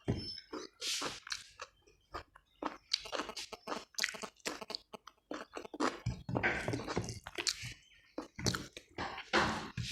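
A person chewing food close to the microphone, with many short crunches at an irregular pace.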